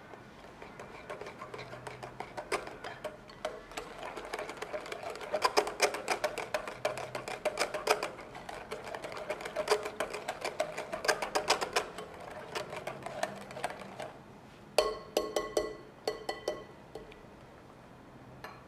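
Wire whisk beating a thick egg-yolk and mascarpone cream in a glass mixing bowl: a fast run of clicks as the wires strike the glass, with the bowl ringing. Near the end come a few sharper, ringing knocks of the whisk against the bowl.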